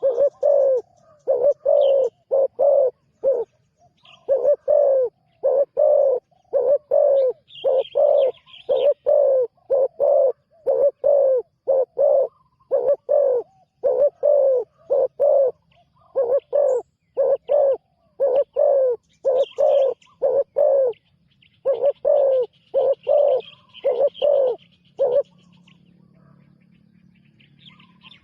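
Spotted dove cooing: a long run of short, low coos in quick groups of two to four, stopping about 25 seconds in. Faint chirps of small birds sound above it.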